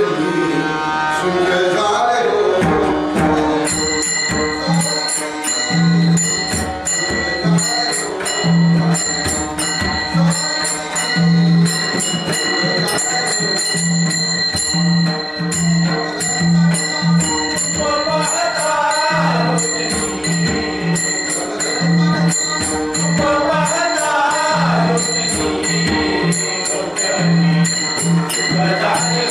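Devotional bhajan music: a harmonium melody over a steady tabla beat, with small brass hand cymbals (taal) struck on the beat and ringing on. Melodic runs rise and fall twice in the latter half.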